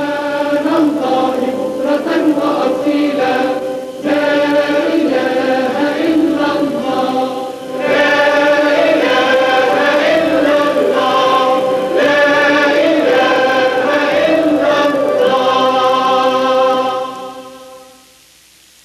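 A choir of voices singing a slow, chant-like melody in long phrases, fading out near the end.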